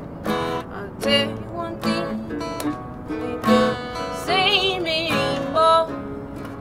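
A band playing live, led by strummed guitar with regular accented strokes and a wavering held note near the middle.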